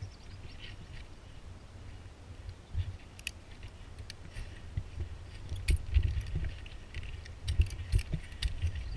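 Irregular metallic clinks and knocks of tree-climbing gear as a climber works his way up the trunk on a rope, over a low rumble, with heavier knocks about two-thirds of the way through.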